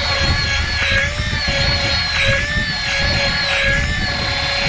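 Shimano Force Master 3000 electric reel's motor whining steadily as it winds in line on a jigging retrieve. Its pitch wavers slightly about once a second.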